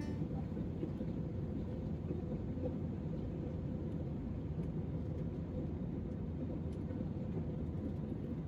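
Steady low rumble of background ambience, with a faint steady hum.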